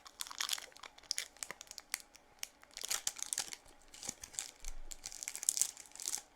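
Plastic sweet wrapper crinkling and tearing in irregular bursts of sharp crackles as it is pulled away from a sticky sweet that has stuck to it.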